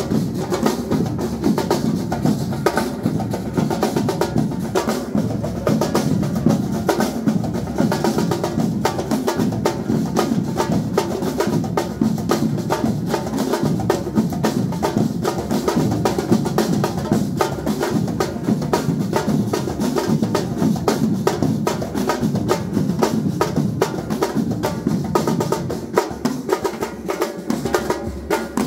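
Batucada drum ensemble playing a samba rhythm: deep bass drums under snare drums and other percussion.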